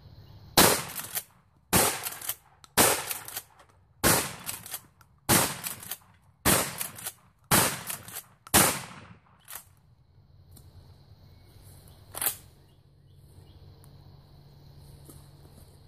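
12-gauge shotgun firing buckshot: eight loud shots in quick succession, about one a second, then a single weaker sharp crack about twelve seconds in.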